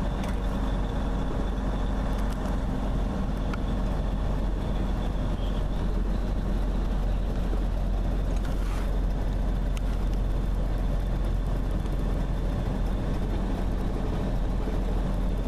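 Steady engine drone and road noise heard inside a truck's cab at highway speed.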